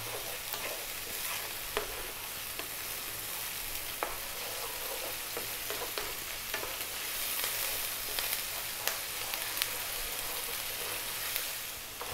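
Chopped red onion with garlic-ginger paste frying on high heat in mustard oil in a nonstick pan: a steady sizzle. A wooden spoon scrapes and taps against the pan now and then as the onion is stirred.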